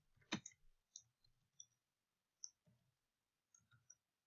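Faint, scattered clicks of computer keyboard keys being typed, about half a dozen, the sharpest about a third of a second in.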